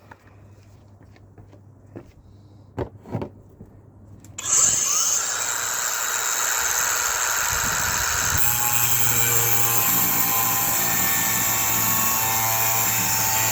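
A few handling knocks, then a power tool starts suddenly about four seconds in and runs steadily, cutting a metal bolt down to length; its whine shifts about halfway through as it bites.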